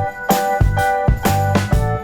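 Background music: an upbeat tune with keyboard-like notes over a steady beat of drum and shaker-like percussion.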